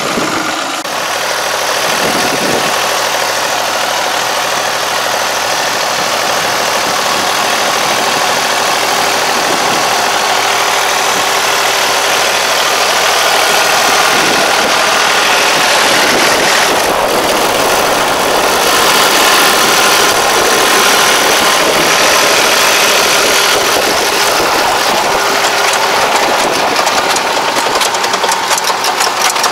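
Yanmar YT333 tractor's diesel engine running steadily as the half-crawler tractor works across the field with an implement in tow.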